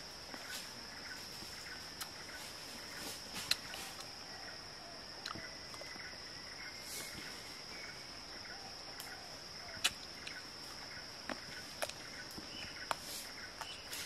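Insects keep up a steady high-pitched drone, with faint ticking beneath it. A few sharp clicks and smacks break through, the loudest about three and a half and ten seconds in.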